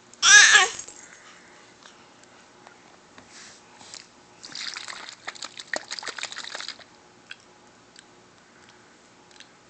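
A baby gives a short, high squeal right at the start. About four and a half seconds in she makes about two seconds of crackly, spluttering noises with her tongue and lips, blowing a raspberry.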